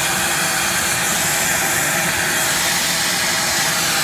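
Wet/dry shop vacuum running steadily: an even rushing of its motor and of air being drawn through the hose.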